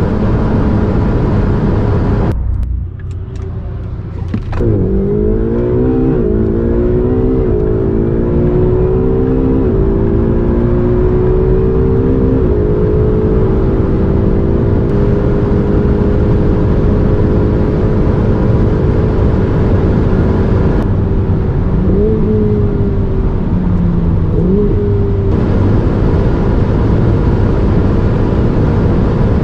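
Porsche Taycan Turbo S electric drive with its sport sound: a layered humming tone that rises in pitch in several stepped sweeps as the car accelerates, then holds steady, with two short pitch jumps near the end. A constant low road rumble runs underneath.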